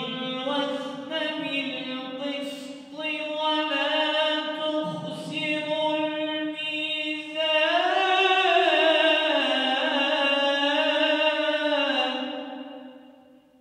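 A man's voice reciting the Quran in the melodic tajwid style, one long ornamented phrase that swells and rises in pitch about halfway through, then fades out near the end.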